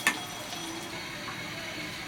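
Marinated boneless chicken pieces frying in oil in a kadai, a steady sizzle, with a sharp click right at the start. Soft background music underneath.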